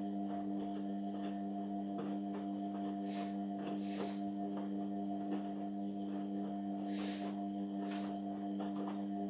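Indesit washing machine giving off a steady electrical hum, with light clicks and taps about once a second.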